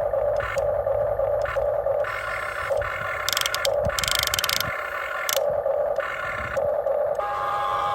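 Huina radio-controlled excavator's electric motors whining in short stop-start runs as its arm, bucket or tracks are worked, with a burst of scraping a little after halfway.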